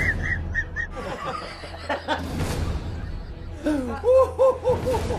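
People laughing: a high-pitched run of about five short 'ha's at the start, and a louder, lower run of about seven 'ha's near the end.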